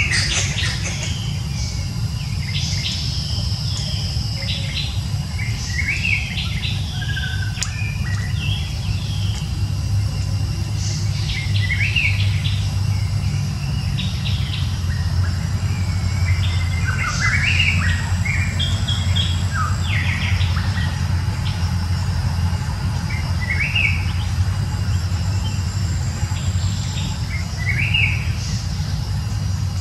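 Birds chirping outdoors in short, scattered calls, over a steady low rumble.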